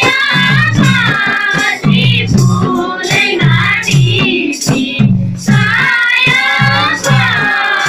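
Nepali folk song: a high voice singing a winding melody over a steady, repeating madal hand-drum rhythm.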